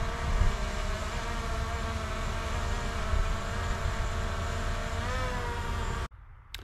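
Small quadcopter drone's propellers whining steadily as it lifts off and hovers, the pitch rising briefly near the end as it climbs, over a low rumble of wind on the microphone. The sound cuts off abruptly about six seconds in.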